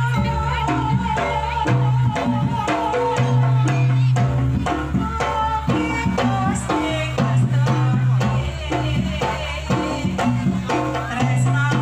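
Jaranan music played loud through a loudspeaker rig: hand drums and metal percussion keep a busy rhythm under a melody, over a steady low tone.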